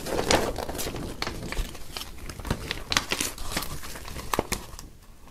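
A paper poster being folded up and handled on a wooden table: irregular paper rustling and crinkling with light taps, dying down near the end.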